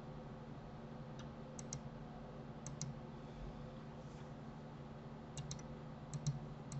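Faint clicks of a computer mouse and keyboard, mostly in quick pairs, half a dozen times, over a low steady hum.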